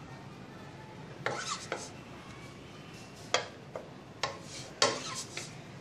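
Wooden spatula scraping and knocking against a nonstick wok and a plate as fried rice is scooped out. It comes as a handful of short, sharp strokes, two about a second in, then a quicker run from about three seconds in.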